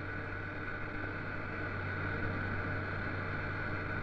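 Pantograph milling machine running steadily, its metal cutter carving plaster with a constant motor hum and hiss.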